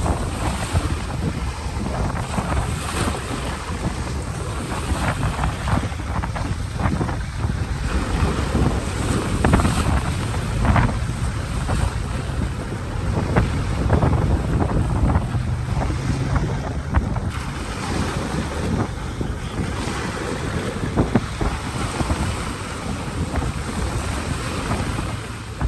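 Ocean waves breaking and washing up a beach, with heavy wind buffeting the microphone throughout.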